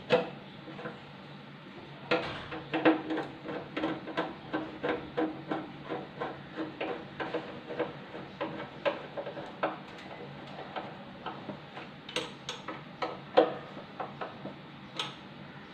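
Screwdriver tightening the mounting screws of a kitchen chimney's blower motor: a run of small metal clicks, about three a second, with a few louder knocks near the start and again near the end.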